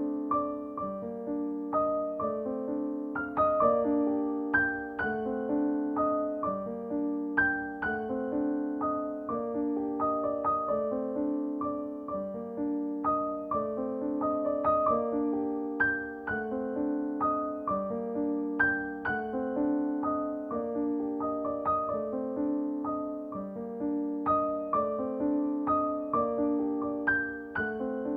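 Soft background piano music: gentle, repeating notes at an even pace.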